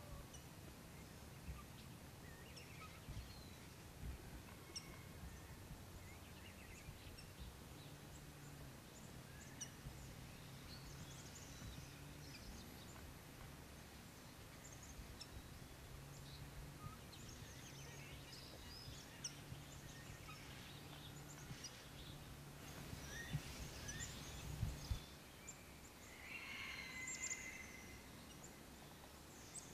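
Faint outdoor ambience: scattered short, high bird chirps over a low steady hum. There are a few knocks about two-thirds of the way through, and one clearer bird call near the end.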